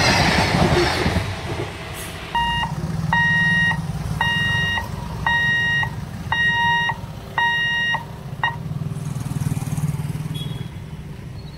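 A passing train's last coaches clatter by and fade out in the first second or two. Then an electronic beeper sounds six evenly spaced beeps at one steady pitch, about one a second, over the low hum of idling motorcycle and car engines.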